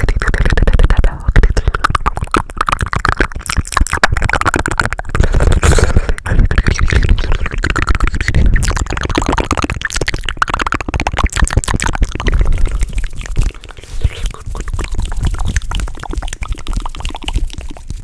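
Rapid, close-miked ASMR mouth sounds and hand sounds: a dense stream of quick clicks and smacks over low thuds.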